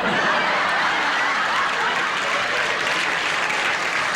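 Studio audience applauding and laughing, a dense steady wash of clapping.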